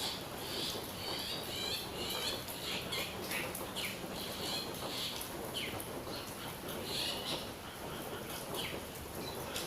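Birds singing, a string of short chirps and quick falling notes repeating every second or so over a steady background hiss.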